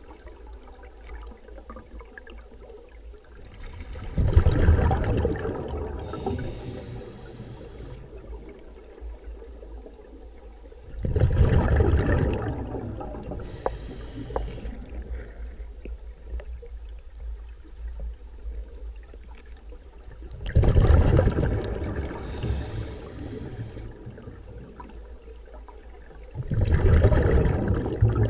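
Scuba diver breathing through a regulator underwater: four loud rumbling bursts of exhaled bubbles, about every seven seconds, alternating with shorter high hisses of inhalation through the regulator.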